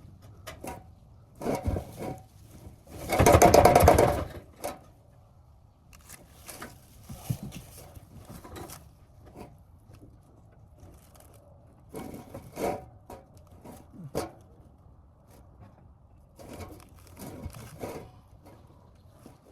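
Tools at work on a car's exhaust attachment points: intermittent metallic clanks, rattles and scrapes, with one loud burst of rapid mechanical chattering about three seconds in.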